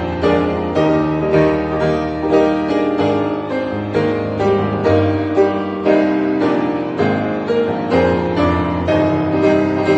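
Piano music, notes struck at a fairly even, unhurried pace.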